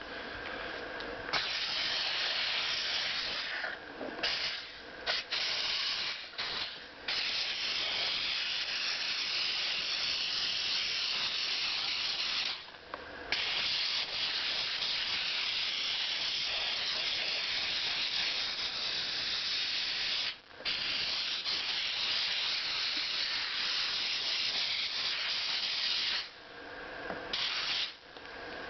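Long hissing spray from cleaning a sewing machine part, cut off briefly a few times and then resumed.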